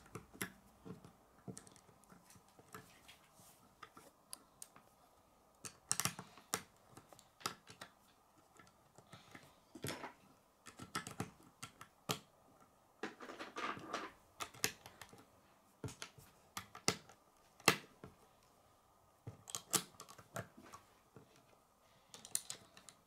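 Small plastic Lego bricks clicking as they are pressed together and handled, in scattered irregular clicks with a longer rattling patch around the middle.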